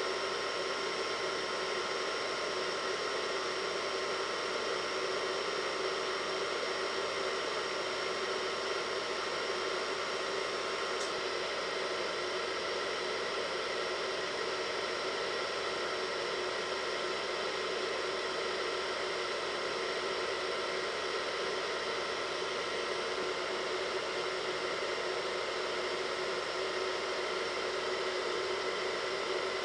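Hair dryer running steadily, a constant rush of blown air with a few steady motor tones in it.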